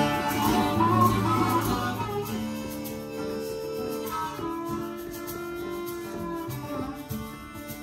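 Live acoustic band playing an instrumental passage: strummed acoustic guitars at first, easing after about two seconds into quieter long held notes that fade toward the end.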